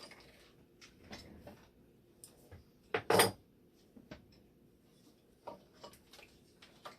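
Small parts and tools being handled during a repair: scattered light clicks and knocks, with one louder clatter about three seconds in.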